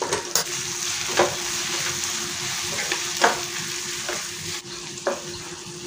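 Onions, tomatoes and freshly added ground spices sizzling in a non-stick kadai while a wooden spatula stirs them, with several sharp scrapes of the spatula against the pan at uneven intervals.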